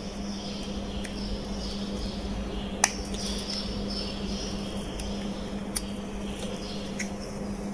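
A knife blade cutting and prying at the casing of a small electrolytic capacitor, giving three small sharp clicks, the first about three seconds in, over a steady low hum.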